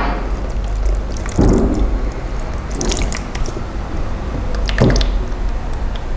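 Liquid clear ceramic glaze poured over an upside-down saucer, splashing and dripping into an enamel basin, with a few light knocks.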